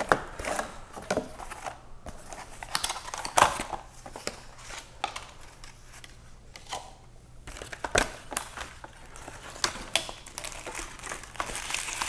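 Mouse box and its packaging being opened and handled: irregular crinkling and rustling with scattered light clicks and knocks.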